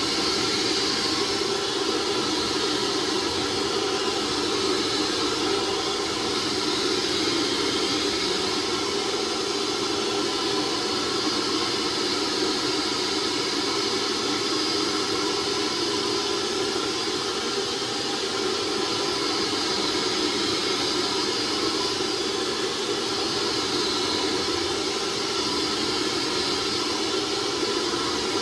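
Hoover SteamVac carpet cleaner running: a steady motor and suction whine with hiss as it sucks up water from the carpet, the high whine dipping briefly twice.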